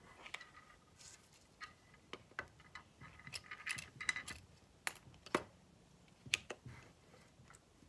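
Small hard objects clicking and clinking as they are handled and set down while a nightstand is tidied: a scatter of sharp ticks and taps, a few with a short ring, busiest in the middle.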